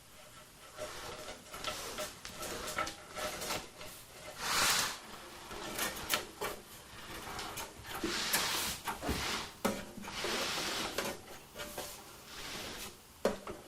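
Hand work on metal kart parts and brake cables: irregular scrapes, rubs and small clicks as parts are handled and fitted, with a sharp click near the end.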